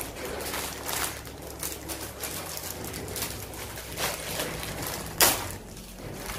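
Crackling and rustling of a plastic snack packet being handled and opened, with one sharp crackle about five seconds in.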